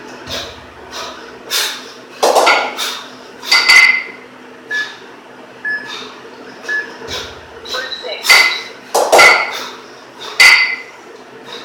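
Two 12 kg kettlebells clanking and clinking against each other during two-arm long cycle reps (clean and jerk), in two clusters of sharp metallic knocks that ring briefly, about one rep every five to six seconds. There are deeper thuds as the bells settle, near the start and about seven seconds in.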